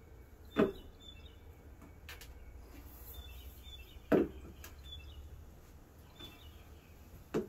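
Hollow knocks of a half-inch PVC pipe frame struck down against a wooden deck to seat its push-fit T and elbow joints: one knock about half a second in, another a few seconds later, and a quick double knock near the end. Birds chirp faintly behind.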